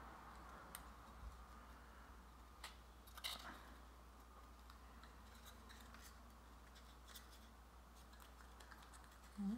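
Near silence: a few faint clicks and scratches from hands pressing brass paper fasteners through a small wooden kit piece, over a low steady hum.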